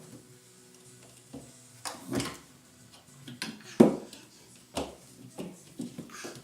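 Knocks and rattles of a refrigerator's drawers and door being handled by a toddler, about half a dozen sharp bumps with the loudest about four seconds in.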